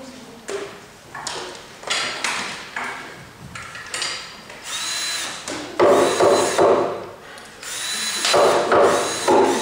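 A power drill runs in two bursts in the second half, each a second or so long. Knocks and clatter come before them.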